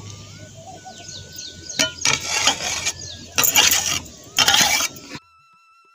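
Metal spatula scraping and stirring a thick dal and chilli mixture in a metal kadhai, in a few short bursts of scraping about two, three and a half and four and a half seconds in. The scraping cuts off abruptly near the end.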